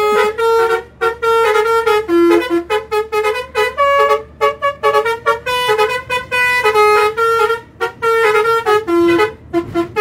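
Bus telolet horn driven by a Basuri melody module, playing a quick tune of short notes that step up and down in pitch with brief gaps between them.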